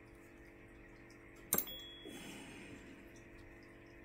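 A single sharp metallic click about a second and a half in, with brief faint rustling after it, from small model-engine parts being handled on a workbench; otherwise quiet room tone with a low hum.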